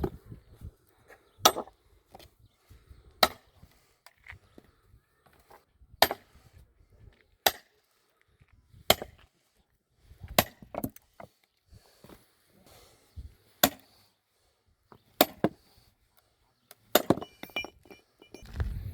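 Sledgehammer striking a steel wedge to split a tough firewood log: about a dozen sharp, clinking blows at uneven intervals of one to three seconds, some in quick pairs.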